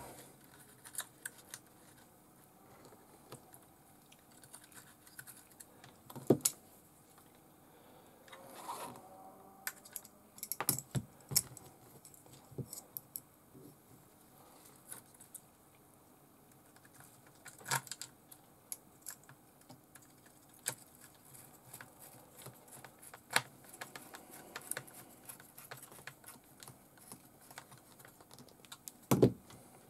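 Small hand screwdriver and fingers working screws and a servo into plastic mounts on a radio-controlled buggy chassis: scattered light clicks and taps at irregular intervals, with a few sharper knocks, the loudest near the end.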